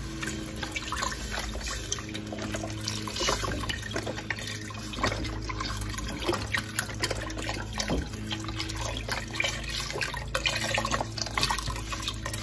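Chicken broth pouring from a carton into a stainless steel stockpot, splashing unevenly as it fills over the chopped tomatoes, with a steady low hum underneath.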